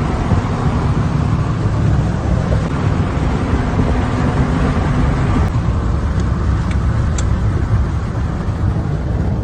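Car running with steady engine and road rumble, the hiss above it easing off about halfway through.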